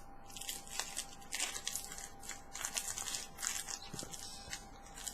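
Faint, irregular close-up crunching and crinkling ticks from food being handled and eaten, over a faint steady hum.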